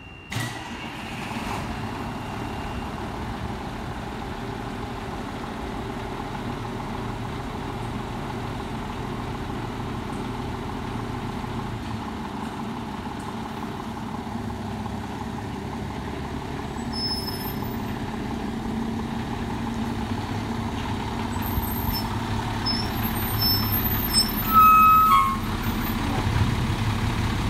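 Fire engine's diesel engine running steadily in the station bay, getting louder as the truck pulls out and passes close by. Faint high beeps sound in the last several seconds, and there is a brief loud blast shortly before the end.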